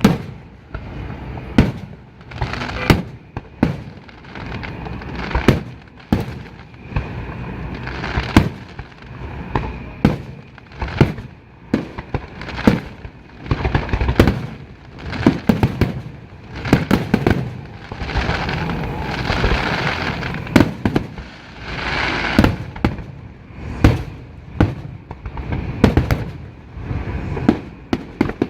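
Aerial fireworks going off: a steady run of sharp bangs every second or so, with a thicker stretch of crackling and overlapping bursts past the middle.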